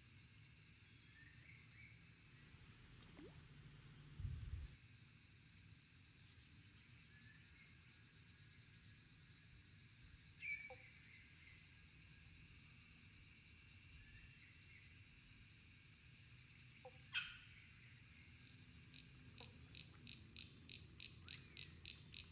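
Faint evening chorus of frogs and insects calling by a pond. A high note repeats about every second and a half, and a fast pulsing trill joins near the end. A soft low thump comes about four seconds in, and a couple of short sharp clicks come later.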